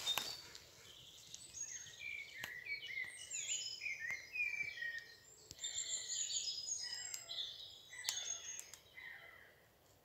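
Several songbirds singing at once in woodland, a busy overlapping mix of quick chirps and whistled phrases, with a few faint clicks among them.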